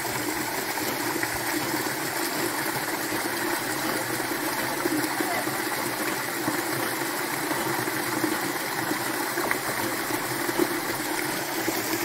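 Small stream cascading down over rocks into a shallow pool: a steady, even rush of falling water.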